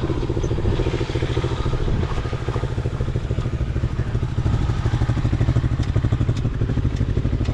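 Four-wheeler (ATV) engine running steadily with an even, rapid low pulse and no revving.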